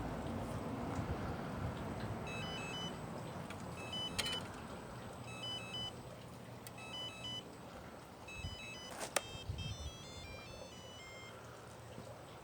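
Groups of short electronic beeps at several pitches, in a tune-like pattern, over a low rumble, with a couple of sharp clicks about four and nine seconds in.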